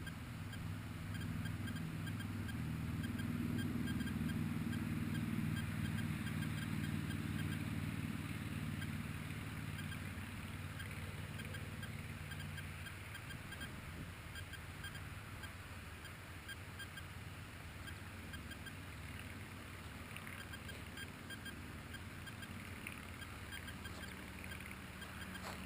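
Low, muffled hum of a small RC plane's electric motor and propeller. It is loudest in the first few seconds and fades out about halfway through.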